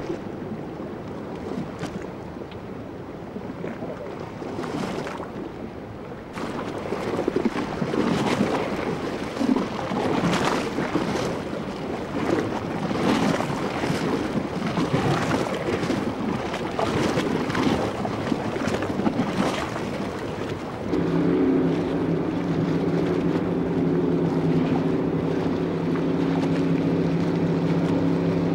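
Wind buffeting the microphone over an open-water background, with uneven gusts. About three-quarters of the way through, a steady engine hum with an unchanging pitch comes in and becomes the loudest sound, typical of a boat engine idling close by.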